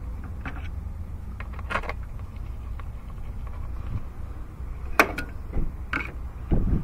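Metal hand tools (sockets, extensions and a ratchet) clinking against one another and a metal parts tray as they are picked up and put down: scattered sharp clinks, the loudest about five seconds in, then a dull thump near the end, over a low steady rumble.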